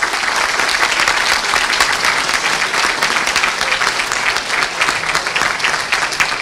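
Audience applause, a steady even clapping from many hands after a speech ends.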